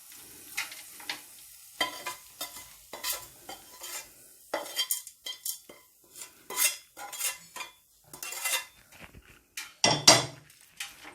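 A spoon scraping and clinking against a pan in irregular strokes while cooked rice is stirred together with a lemon-juice tempering for lemon rice. The loudest knock comes about ten seconds in.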